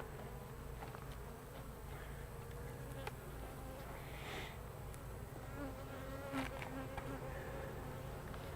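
Honey bees humming steadily around an open hive, with a few light clicks of frames being handled.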